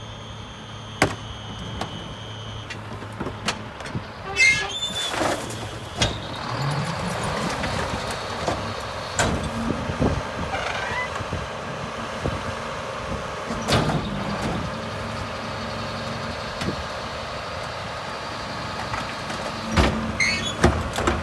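Garbage truck at work: its diesel engine speeds up about seven seconds in and holds a higher, steady speed, with sharp clanks and bangs every few seconds.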